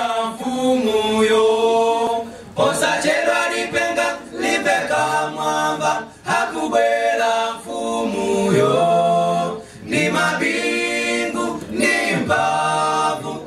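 Male a cappella vocal group singing into microphones. Several voices hold chords in close harmony, in phrases of a few seconds with brief breaks between them.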